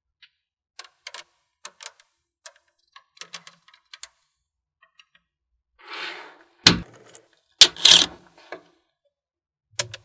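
Small magnetic balls clicking as they snap together: a scattering of sharp ticks, then a short rattle about six seconds in and two loud clacks shortly after as a larger piece of joined magnet balls is handled and set down. One more click comes near the end.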